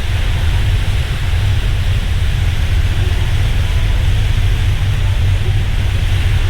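Steady wind buffeting the microphone, a low fluttering rumble under an even hiss, with no distinct event standing out.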